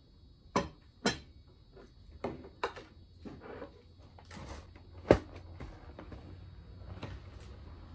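Plates, bowls and a steel dish being set down on a wooden table: a handful of sharp knocks and clinks, the loudest about five seconds in.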